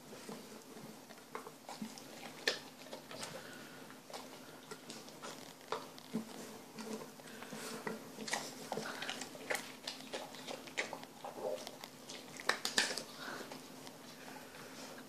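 Large mastiff-cross dog chewing and smacking on wet canned dog food and kibble, with irregular wet clicks of jaws and tongue and a few louder smacks scattered through.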